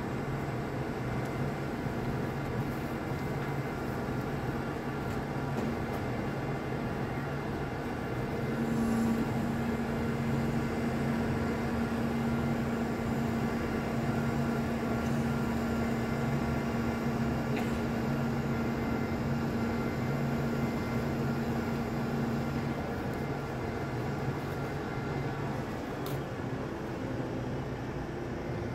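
Heavy diesel engines of a mobile crane and trucks running steadily. A steady humming tone joins in about nine seconds in and drops out a little after twenty seconds.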